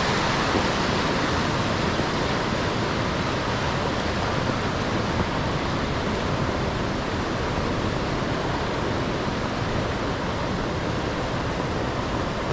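Waterfall rushing steadily: an even hiss of falling water with no breaks.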